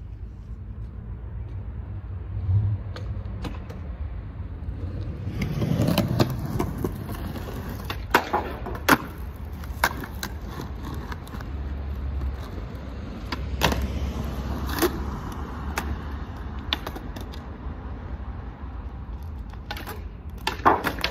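Skateboard wheels rolling and rumbling on a concrete sidewalk, with a series of sharp wooden clacks from the board. Near the end comes a quick cluster of clacks as the board is popped for a trick at a low ledge.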